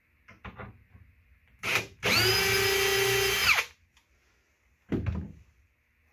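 Cordless RIDGID drill driving a screw through a soft-close hinge's mounting plate into a cabinet face frame: a short blip of the motor, then a steady run of about a second and a half that winds down as the screw seats, and another short blip about five seconds in. A few light clicks of handling come first.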